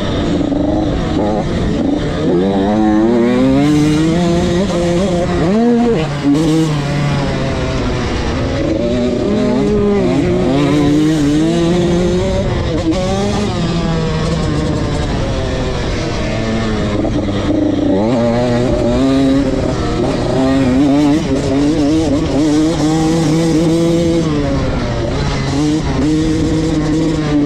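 Motocross dirt bike engine heard from on board, revving up and dropping back again and again as the rider accelerates, shifts gear and shuts off for corners, with a rushing noise over it.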